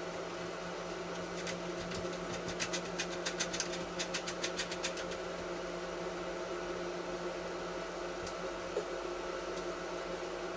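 A steady mechanical hum. About two and a half seconds in, a quick run of light clicks starts, about five a second, and stops after roughly two and a half seconds.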